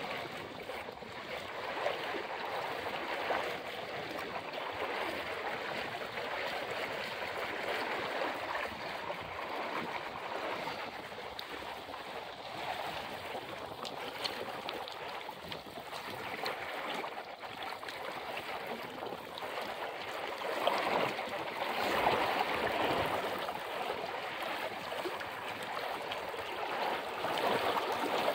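River water running steadily, a continuous babbling rush that swells a little about two-thirds of the way through.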